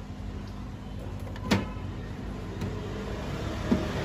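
Fingers handling and picking tape off the clear plastic lid of a mini aquarium, with one sharp tap about a second and a half in and a lighter one near the end, over a steady low hum.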